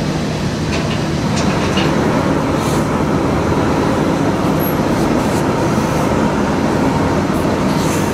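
Steady machinery drone with a constant low hum and an even hiss, the background noise of a large workshop, with a few faint ticks now and then.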